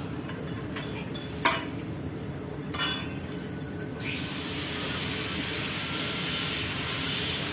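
Two sharp metallic clinks of hand tools against metal while working on the vehicle's starter wiring, over a low steady hum; about halfway through, a steady hiss starts and continues.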